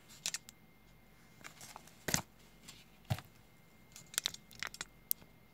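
Scattered light handling noises on a tabletop: irregular soft clicks, taps and rustles as crocheted doll pieces, tools and papers are moved, the sharpest about two seconds in.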